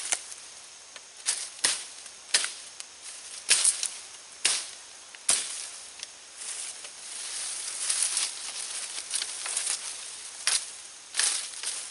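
Machete chopping green saplings: a series of sharp, irregular cracks as the blade bites into the wood, with leafy branches rustling and swishing for a few seconds in the middle.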